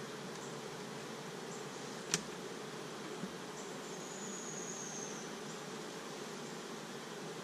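A honeybee colony buzzing steadily around an open hive as its frames are handled, with one sharp click about two seconds in.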